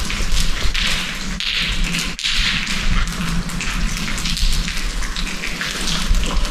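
Footsteps walking along a path, a noisy scuff about every two thirds of a second, over a steady low rumble.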